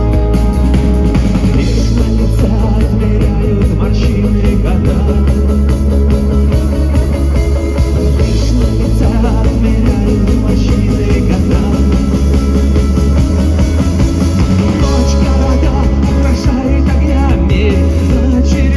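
Rock band playing live and loud, with drums, guitars and bass, and singing.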